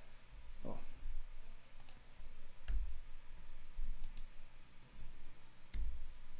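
Occasional computer keyboard keystrokes, a handful of sharp clicks spaced irregularly about a second apart, each with a dull low thud.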